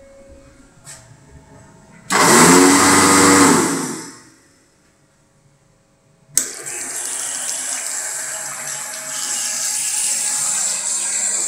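Electric hand dryer blowing for about two seconds, its motor pitch bending up and down before it winds down and stops. After a pause, a push-button basin tap is pressed with a sharp click and water runs steadily into a ceramic sink.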